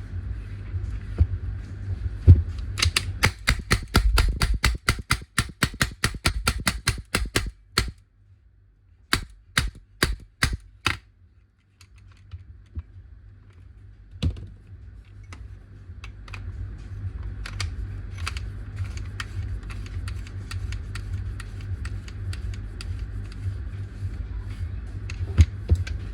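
Paintball marker firing a rapid string of shots for about five seconds, then five slower, evenly spaced shots after a short pause, followed by faint scattered clicks over a low hum.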